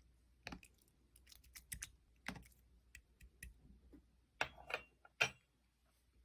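Irregular light clicks and taps, with a cluster of louder ones about four and a half to five seconds in.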